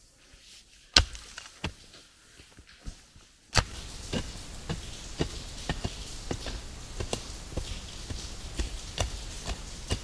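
Two hard strikes of a hand tool into the dirt of a trail step. After that comes a steady rushing background and a run of lighter, irregular chopping knocks, about two a second, as a pickaxe digs and scrapes at the soil of the slope.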